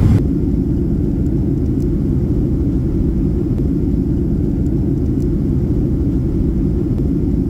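Steady low rumble of a Boeing 737 airliner's cabin in flight: engine and airflow noise heard from a window seat over the wing, muffled, with almost nothing in the higher pitches.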